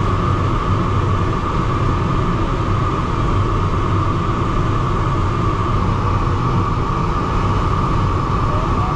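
Steady rush of airflow around the cockpit and canopy of a DG-303 glider in flight, with a constant mid-pitched tone running through it.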